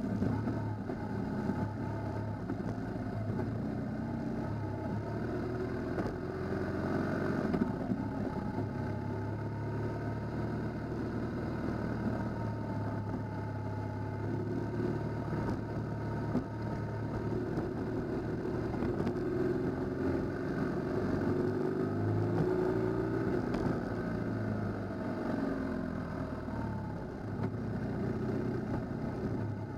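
Motorcycle engine running on a gravel road, heard from on board, its pitch rising and falling with the throttle, over a steady rush of road and wind noise.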